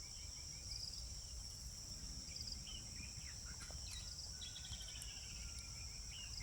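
Outdoor insect chorus: a steady high-pitched trill throughout, with birds chirping over it in short calls and a quick run of descending notes about four and a half seconds in.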